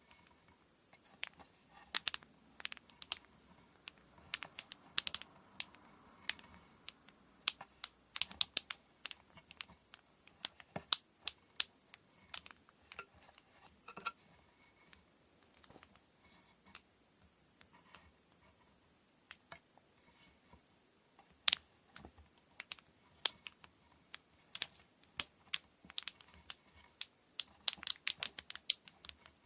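Light, irregular clicks and taps of hand work preparing a kumihimo braid, with small objects handled and set down, coming in clusters with short quieter gaps.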